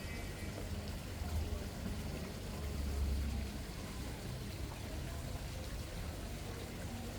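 Water flowing steadily, with a low rumble that swells about three seconds in.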